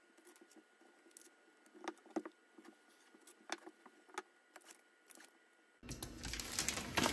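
Double-sided tape being handled on a wooden board: soft scattered clicks and rustles as strips are laid and pressed down. About six seconds in, louder crackling handling noise as the tape's backing is peeled off.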